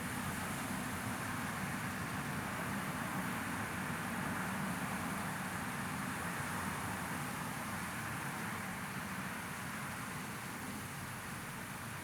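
Steady rushing noise of a white-noise sleep track, even throughout with no distinct events.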